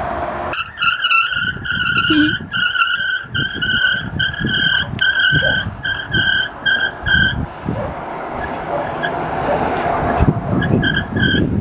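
Bicycle brakes squealing in short, evenly spaced pulses about twice a second while the bike rolls down a steep path, over a low rumble of wind and tyres. The squeal stops about seven seconds in and returns briefly near the end.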